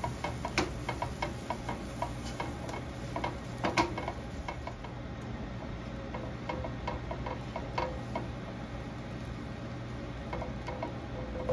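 Butter melting in a hot nonstick frying pan, crackling with small irregular pops as its water boils off, while a silicone spatula spreads it around. A steady low hum runs underneath.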